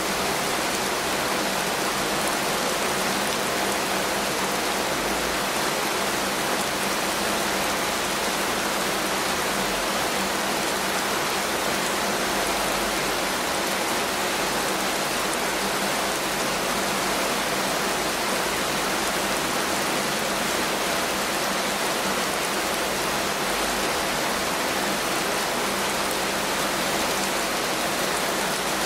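Heavy rain falling steadily, a dense even patter of drops with no break or change.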